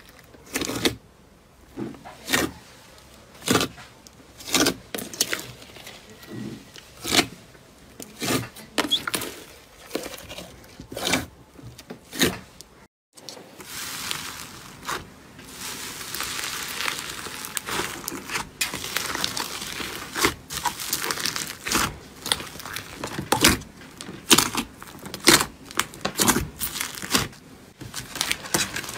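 Hands squeezing and stretching glossy slime, giving a string of sharp wet pops and clicks. After a brief gap near the middle comes a hand pressing into crumbly, crunchy slime pieces: a dense crackling crunch, then more scattered pops near the end.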